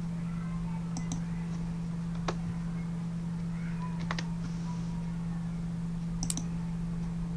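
A steady low electrical hum with a few sharp computer keyboard clicks scattered through it, some in quick pairs.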